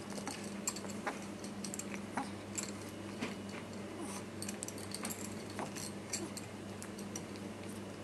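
Scattered light clicks, several a second, over a steady low hum.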